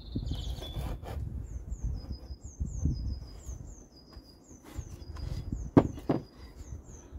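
Knife scraping and cutting through gasket paper on a wooden bench, with two sharp knocks about six seconds in. A small bird repeats a short, high, falling chirp throughout.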